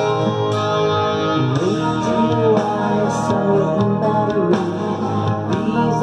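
Hard rock song with a sung vocal line over guitars, with an electric bass played along.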